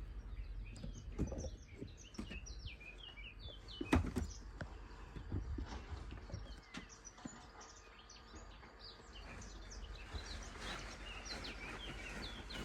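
Small birds chirping and twittering in short repeated calls, thickest at the start and again near the end, with a single knock about four seconds in over a low steady rumble.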